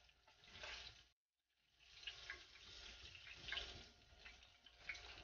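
Faint sizzling and crackling of hot oil in a cast-iron skillet as a cornmeal-battered catfish fillet, finished frying, is lifted out of the grease. The sound cuts out briefly about a second in.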